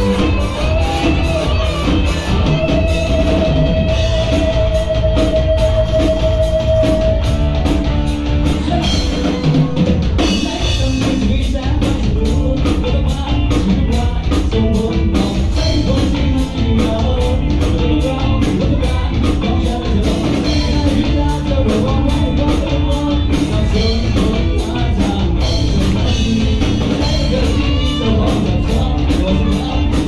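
Live rock band playing: electric guitars over a drum kit keeping a steady beat. A few seconds in, a long held note with vibrato rides over the band.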